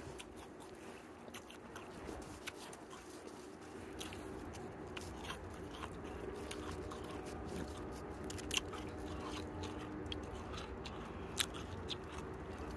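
Snow crunching and crackling in irregular clicks as a gloved hand scrapes it up off a car and packs it into a lump.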